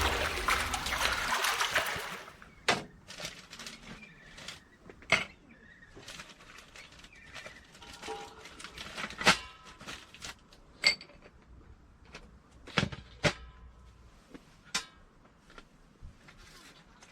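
Background music fading out over the first two seconds. Then a quiet stretch with scattered light knocks and clicks at uneven intervals, a few of them ringing faintly.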